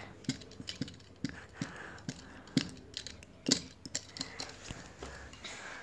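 Small plastic toy pieces clicking and tapping as they are handled, in irregular light knocks about one or two a second.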